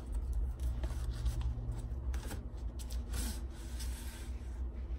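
Cardboard mailing tube being handled and a rolled vinyl banner pulled out of it: irregular scraping and rubbing, with a few louder scrapes around the middle.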